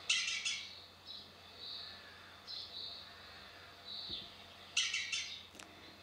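Wild garden birds calling: soft chirps repeated every second or so, with two louder, rapid chattering calls, one at the start and one about five seconds in.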